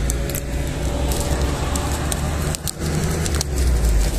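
Clear plastic wrap being peeled off a phone box, crinkling and crackling in a run of sharp clicks, over a steady low rumble.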